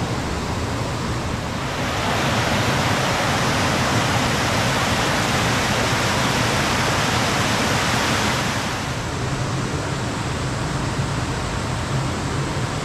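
Small mountain stream flowing. From about two seconds in, the sound of water pouring over a small cascade grows louder and stays up until about nine seconds in, then the softer steady flow returns.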